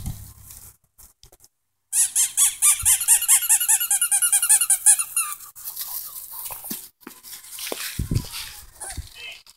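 Rapid high squeaking, about ten squeaks a second for some three seconds starting about two seconds in, during bulldog puppy play. Softer scuffling and a couple of low thumps follow near the end.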